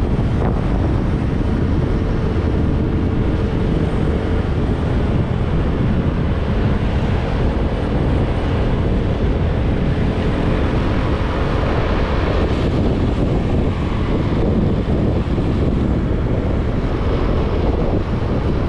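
Steady wind rush and buffeting on the microphone over motorcycle road noise while riding at speed. A faint steady engine tone sits underneath in the first half.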